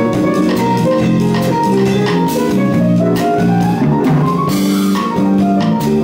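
Live band playing: drum kit, electric bass, guitar and piano together, with a bright cymbal wash about four and a half seconds in.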